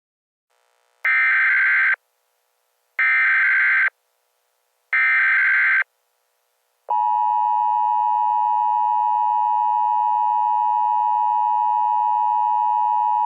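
Emergency Alert System broadcast tones: three harsh data bursts of the SAME header, each about a second long with a second's gap between them, then about seven seconds in the steady two-tone EAS attention signal starts and holds.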